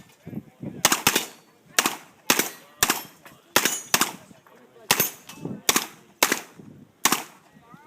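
Revolver shots fired in a quick string at steel targets, about ten sharp reports roughly half a second to a second apart. Several of them are followed by a faint high ring from the struck steel.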